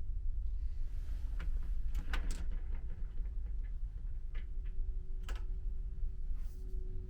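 Steady low rumble and hum of a ferry's engines, with a few sharp clicks and knocks about two seconds in and again around four and five seconds.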